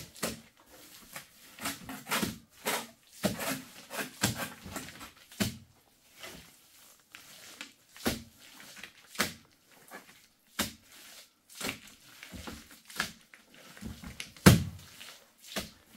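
Hands working wet straw-and-mud plaster: irregular squelches, slaps and rustles of straw, one sharper slap about fourteen and a half seconds in.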